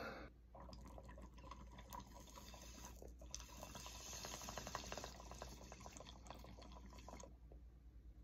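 Water bubbling in an 18-inch glass beaker bong as smoke is drawn through it: a faint, rapid crackling gurgle that starts about half a second in and stops about a second before the end.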